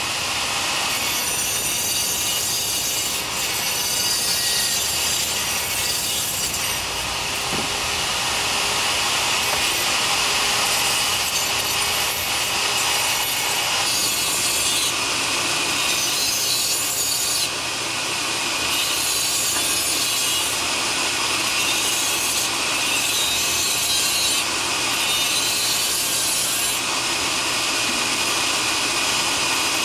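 A small abrasive cut-off disc on a handheld rotary tool grinding a cut through cement plaster, a steady gritty hiss whose intensity shifts every few seconds as the disc is pushed along the crack.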